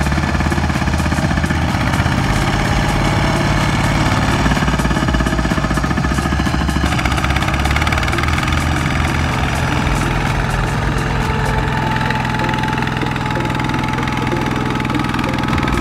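Single-cylinder diesel engine of a two-wheel power tiller running steadily with a rapid, even chug, under load as it hauls a trailer through deep mud.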